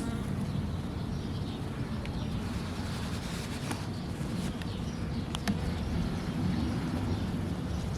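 Steady low buzz of Carniolan honeybees around an opened hive, mixed with wind rumbling on the microphone, with a few faint light clicks near the middle.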